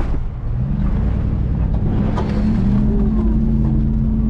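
Supercharged Range Rover P38 engine running under load while driving off-road, heard from inside the vehicle. Its note rises a little about two seconds in and then holds steady.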